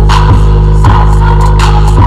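Bass-heavy electronic music played loud through Flowbeats Small Heera tower speakers as a bass test: a regular drum beat over a deep, steady bass line.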